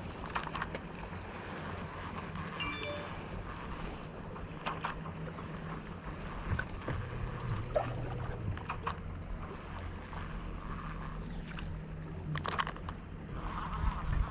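Boat motor humming steadily, with wind noise on the microphone and a few scattered clicks and knocks.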